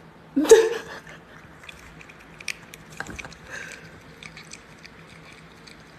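A short vocal sound about half a second in, then soft, irregular mouth clicks of a cat chewing and licking as it takes its medicine.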